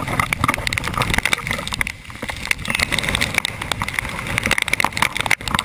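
Tornado wind buffeting a camera microphone, with rain and debris striking it in rapid, irregular hits.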